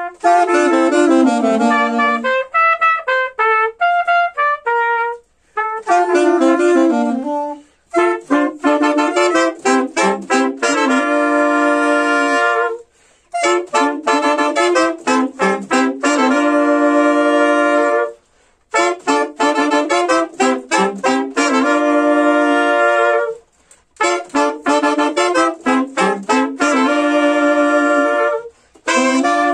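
Horn quartet of three saxophones and a trumpet playing a reggae melody in harmony with no rhythm section. The phrases last a few seconds, with short breaths between them, and from about a quarter of the way in they turn to quick repeated chords.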